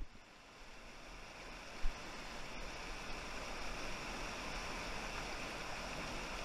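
Fast mountain river rushing over rocks in rapids: a steady rush of water that rises in level after the start. A single brief knock about two seconds in.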